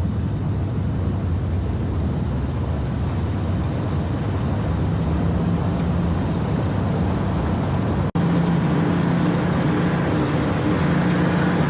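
Steady low drone of a vehicle engine and road noise heard from inside a moving vehicle, broken by a brief dropout about eight seconds in.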